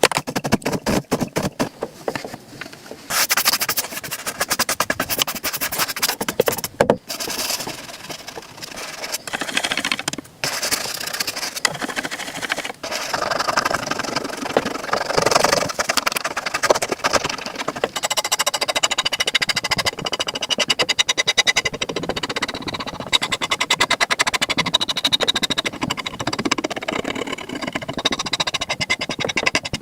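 Brushing and rubbing on a leather boot as it is cleaned and polished: a fast, steady run of scratchy strokes, broken by a few short pauses.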